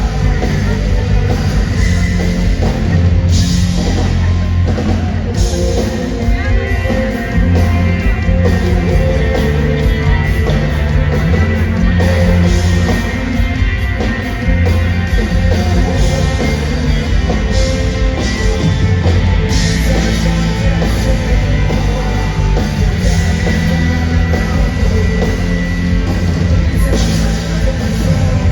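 Loud live rock band with drum kit, distorted guitars and bass, playing steadily.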